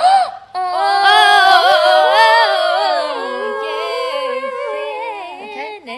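A new pop song with female vocals plays loudly, starting about half a second in.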